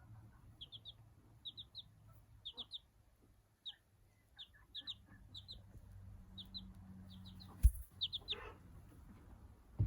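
A young chick, an Australorp, Light Brahma and Silkie bantam cross, peeping in quick groups of two or three short, high peeps, about once a second. A single sharp tap sounds near the end.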